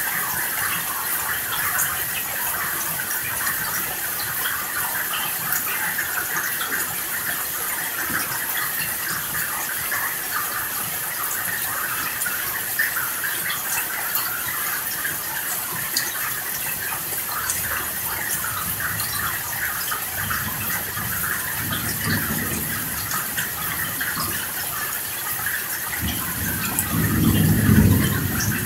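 Steady rain falling, with a low rumble of thunder about two-thirds of the way in and a louder roll of thunder near the end.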